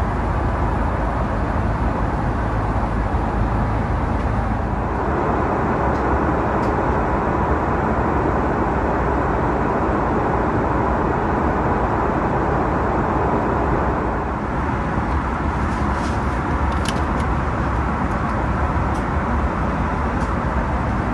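Steady engine and airflow noise inside the cabin of an Airbus A330-300 in cruise flight, shifting slightly in tone twice.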